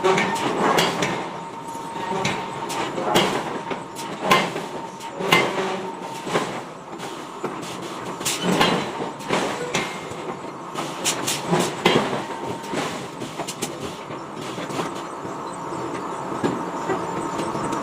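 Heavy metal clanking and knocking from forging work on large steel blocks: irregular sharp strikes over a continuous drone of running machinery.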